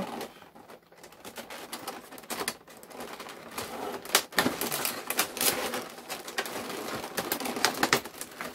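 Clear plastic blister tray crackling and clicking as it is gripped and lifted, with a sharper snap about four seconds in.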